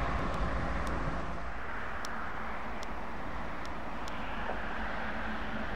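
Heavy trucks passing on a road: a steady rumble of engines and tyres, with a few faint high ticks.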